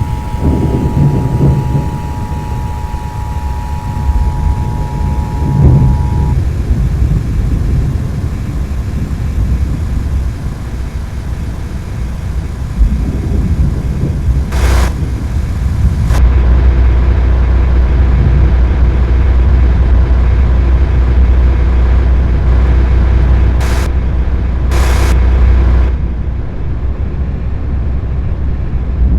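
Steady low rumble of a vehicle on the road. For the first few seconds a weather radio's two-tone alert signal sounds over it, then stops.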